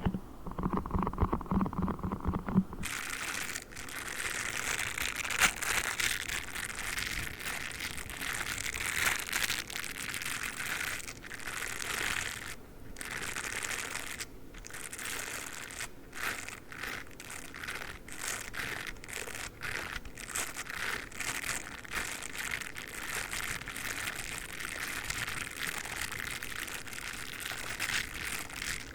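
A squishy foam toy is squeezed for the first few seconds. From about three seconds in, a dog toothbrush's bristles are brushed and scratched in quick strokes, a dense crinkly scratching with many short breaks.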